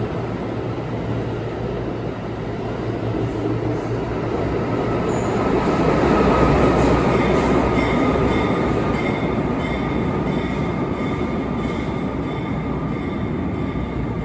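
A five-car R160B subway train being towed through the station by diesel-electric locomotives: a steady rumble of wheels on the rails that is loudest about six to seven seconds in, as the trailing locomotive goes by. Thin high wheel squeal joins in as the train moves away.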